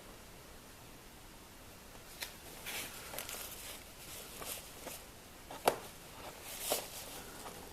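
Soft handling noises: quiet for about two seconds, then a run of light rustles and small clicks, with two sharper clicks a second apart past the middle.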